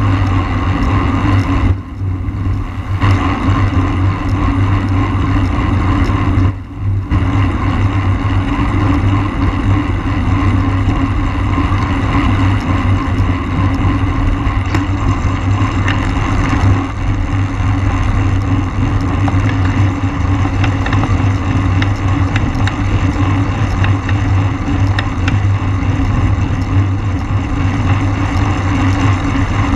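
Steady wind rush and road rumble on the microphone of a camera riding on a racing bicycle at race speed. It eases briefly about two seconds and six and a half seconds in.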